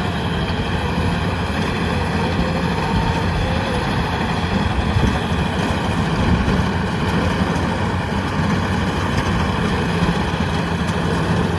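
Yanmar combine harvester's diesel engine running steadily with a low hum, working under load as the machine cuts rice through deep mud.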